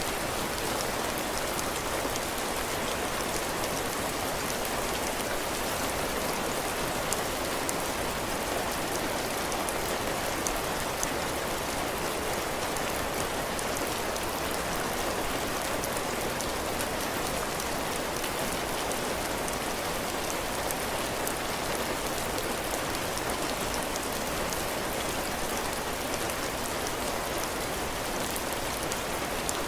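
Heavy rain falling steadily on a cabin porch, drops pattering on the roof and floor as a continuous hiss with fine drop ticks.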